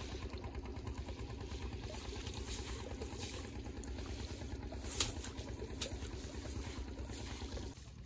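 Fishing boat's engine idling steadily, with a couple of sharp clicks about five and six seconds in as the wet net is dragged in over the gunwale.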